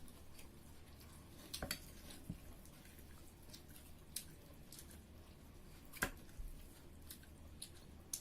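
Scattered small clicks and taps of people eating a meal, with a double click about a second and a half in and the loudest click about six seconds in.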